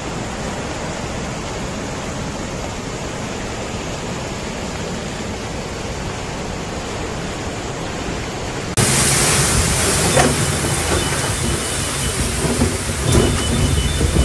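Steady rush of swollen brown floodwater surging past. About nine seconds in it cuts to a louder, brighter hiss of heavy rain pouring down on a flooded street.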